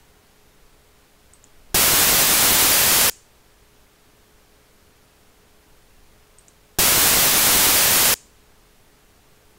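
Two loud bursts of even, hiss-like MLS (maximum length sequence) test noise, each about a second and a half long and about five seconds apart. It is the measurement signal being repeated while the level is raised for a tweeter measurement.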